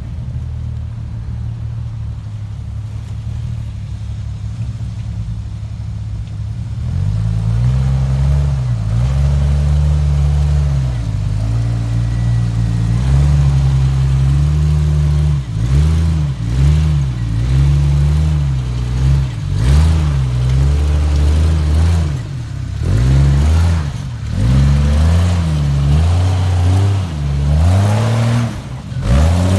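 Jeep engine idling steadily, then pulling harder from about seven seconds in, its revs rising and falling again and again from about fifteen seconds on as the throttle is worked on an off-road hill climb.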